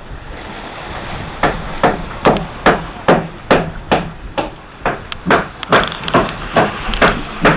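Steady, repeated blows of a hand tool striking wood, about two a second, starting about a second and a half in, as the wrecked boat is broken up for salvage.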